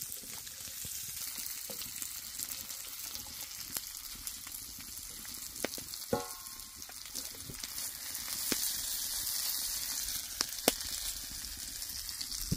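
Gnocchi and pancetta sizzling steadily as they fry in a cast-iron pan, with a few sharp clicks as they are stirred.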